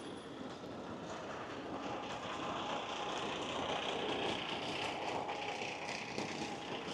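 Street traffic on rain-soaked roads: a vehicle's tyre hiss on wet pavement swells through the middle and eases toward the end, over a steady street wash.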